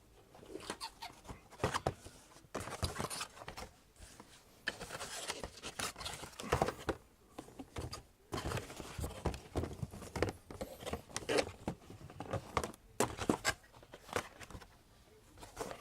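Irregular rustling, scraping and clicking as an HDMI-to-VGA cable and its retail box packaging are handled and fitted back together.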